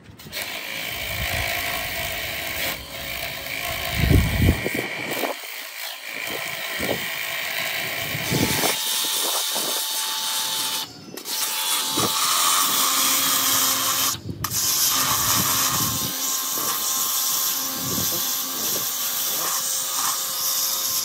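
High-pressure washer running, its water jet hissing and blasting against a watermelon's rind, with two brief breaks in the sound.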